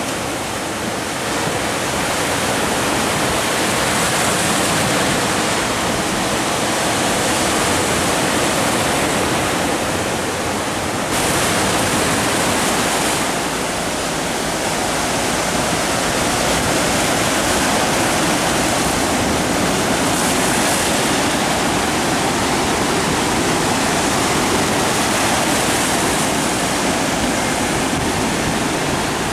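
Sea surf breaking and washing over a rocky shore: a loud, continuous rush of churning water.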